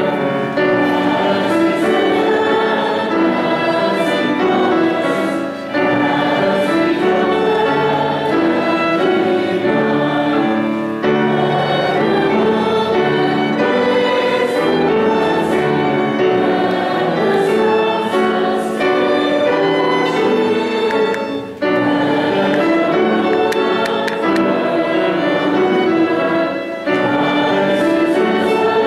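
Congregation singing a hymn together, accompanied by a violin, with short breaks between sung lines.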